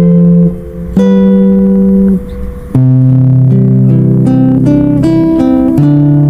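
Background music: an instrumental passage of a song, with plucked guitar notes and chords and no singing. The sound drops away briefly twice before the chords come back in.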